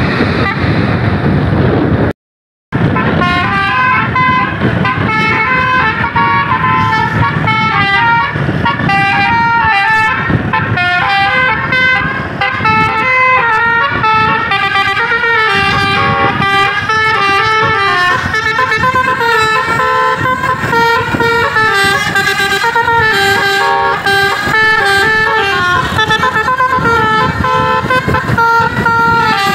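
A tour bus's basuri-style telolet horn, a multi-tone musical air horn, playing a long melody in quick stepped notes over a low rumble. It cuts out for about half a second near the start.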